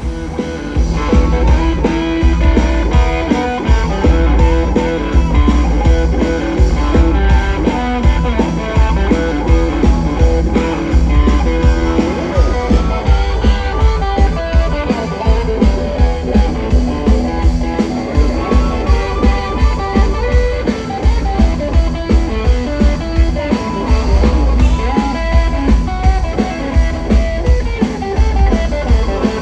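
Live blues-rock band playing: electric guitar, a drum kit with a steady kick-drum beat about twice a second, and harmonica.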